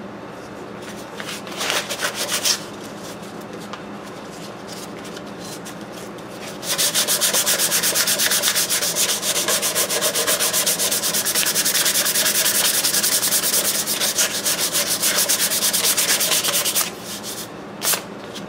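Hand sanding of hardened body filler on a metal engine housing with sandpaper wrapped around a wooden block: a few quick strokes about a second in, then steady rapid back-and-forth strokes from about seven seconds in until near the end. The filler is being block-sanded smooth before paint.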